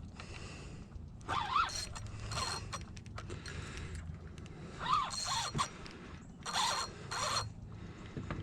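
Fishing reel working against a hooked jack crevalle: line is pulled off the drag in several short runs that rise and fall in pitch, with ratcheting reel sounds between them.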